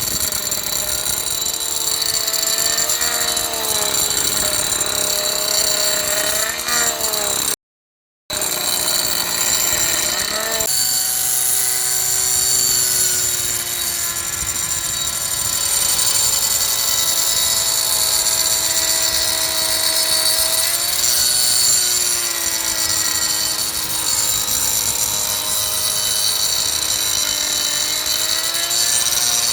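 Angle grinder with a 115 mm carbide-toothed carving disc running and cutting into wood. Its high motor whine dips in pitch and recovers again and again as the disc is pressed into the work and eased off. The sound cuts out completely for a moment about eight seconds in.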